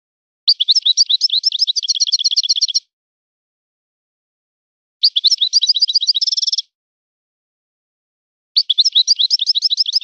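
European goldfinch singing: three short phrases of rapid, high twittering notes, each lasting about two seconds, with clean pauses between them. The second phrase ends in a buzzy trill.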